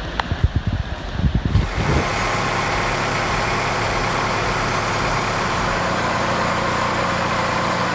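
A few irregular knocks and thumps, then, from about two seconds in, an engine running steadily at a constant speed.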